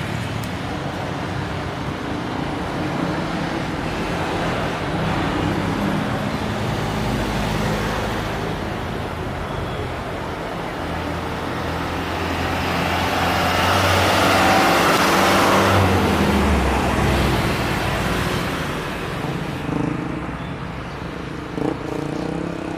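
Jet airliner passing overhead: a rushing engine noise swells slowly over several seconds, peaks, drops a little in pitch and fades, over a steady background of road traffic.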